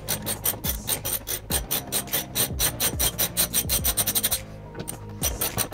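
Background music with a steady beat: fast ticking hi-hats over kick drums and a held bass line, the hi-hats dropping out briefly about four and a half seconds in.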